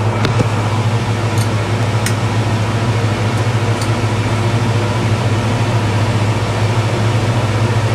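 Skate sharpening machine running steadily with its grinding wheel spinning unloaded, a constant low motor hum with a few faint ticks.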